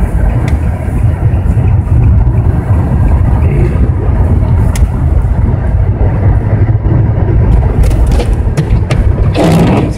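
Steady low rumble of a car driving on a snow-covered road, heard inside the cabin: tyre, engine and wind noise. Near the end a brief, louder rush of noise rises over it.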